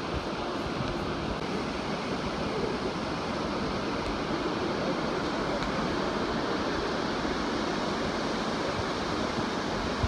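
Steady rushing of the Niagara River's whitewater rapids far below, mixed with wind buffeting the microphone.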